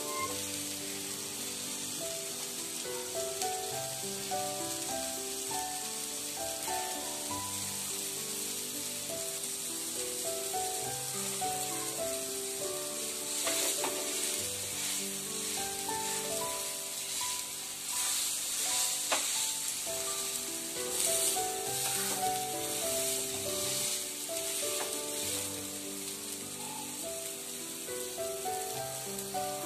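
Mini uttapams frying on the second side on a nonstick tawa, a steady sizzle, with a few scrapes of a metal spatula against the pan around the middle. Soft instrumental background music with a simple melody plays under it.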